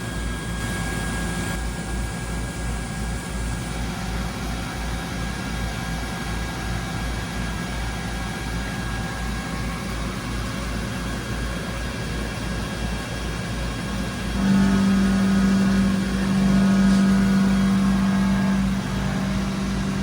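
Doosan DNM500 vertical machining center running with a steady mechanical hum and faint whining tones. A louder, low, steady whine comes in about three-quarters of the way through and drops back shortly before the end.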